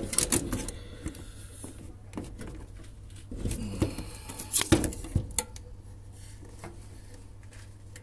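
Handling noise inside a washing machine's cabinet: scattered clicks and light knocks of hands and parts against the drum and housing, over a low steady hum. The sharpest knock comes about halfway through.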